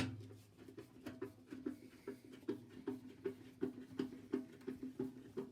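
A hand tool working a fastener loose inside an old microwave: a sharp click, then steady repeated clicks about two or three a second, each with a short squeak.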